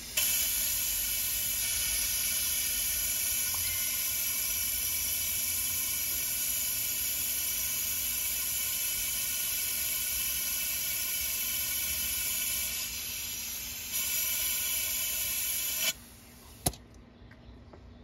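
Compressed air rushing through a venturi-type coolant vacuum refill tool on the coolant reservoir as it draws a vacuum on the engine's cooling system: a loud steady hiss with a faint whistle in it. It dips briefly about thirteen seconds in, then cuts off suddenly a couple of seconds before the end, followed by a single click.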